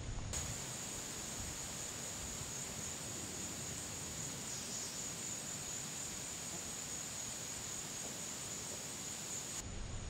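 Steady high-pitched insect drone over a soft, even hiss.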